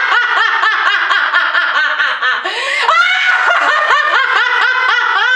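High-pitched laughter: a rapid run of giggling syllables, about five a second, with a rising squeal near the middle.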